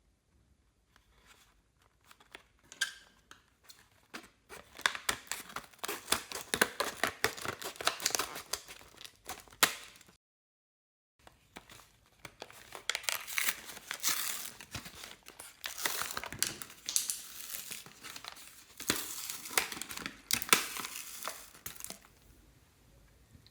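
Slime being squished and stretched by hand, giving a dense run of sticky crackling and popping clicks. It comes in two stretches, split by a brief dead-silent break just after ten seconds.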